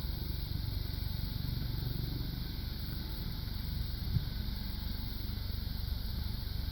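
Coast Guard helicopter running steadily, its turbine engine and rotor giving a constant low drone.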